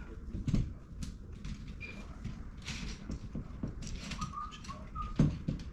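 Scattered light knocks and clatter, with a few brief high chirps or squeaks; the loudest knock comes about five seconds in.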